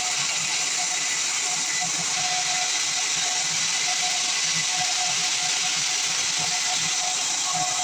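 Band sawmill cutting through pine wood: a steady, even hissing noise with a faint on-and-off whine.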